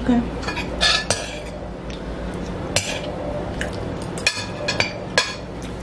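Metal spoons clinking and scraping against ceramic bowls while eating, a handful of light clinks spread through, over a low steady hum.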